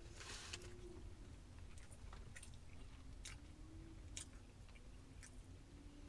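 Faint close-up chewing of a mouthful of breaded chicken sandwich, with scattered small clicks and a brief crunch about half a second in.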